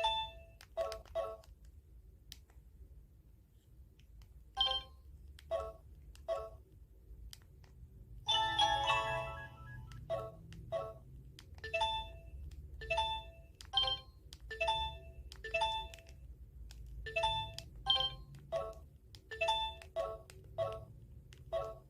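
Samsung Anycall SCH-S530 mobile phone playing a ringtone melody through its small speaker: a tune of short, bell-like notes in a steady rhythm, with a fuller cluster of notes about eight seconds in.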